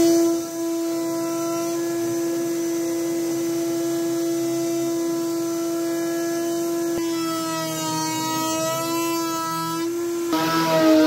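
Table-mounted router running with a steady high whine while a bearing-guided edge bit profiles the edges of fibreboard pieces fed past it; the tone wavers under the cut and shifts in pitch near the end.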